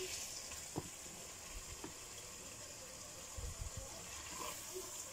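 Chicken curry sizzling faintly in the pot as a spatula stirs it, with a few light taps and scrapes of the spatula against the pot.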